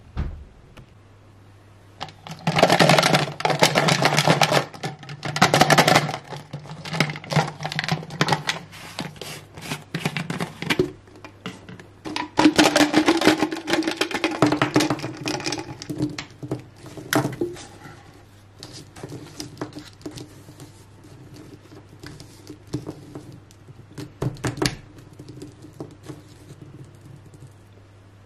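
Small hard-plastic dolls and plastic beads clattering and rattling as they are handled, in several bursts of dense clicking, the loudest near the start and about halfway, with sparser clicks later over a low steady hum.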